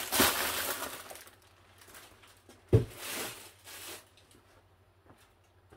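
Crinkling of plastic packaging being cleared away, then a single sharp thump about three seconds in with a short rustle after it. After that only a few faint ticks are heard.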